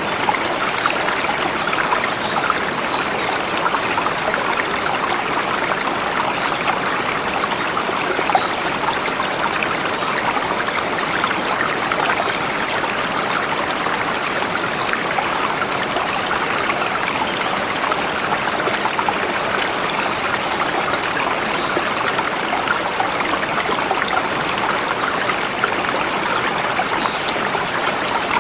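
Forest river flowing over rocks: a steady, even rushing and splashing of water.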